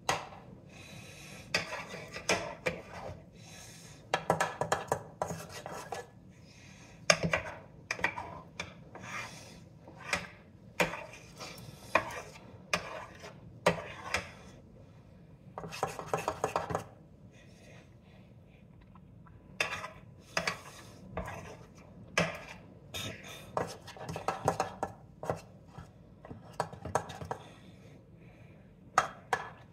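Kitchen utensil scraping and knocking against a bowl in irregular strokes, with a few longer scrapes and a short lull past the middle.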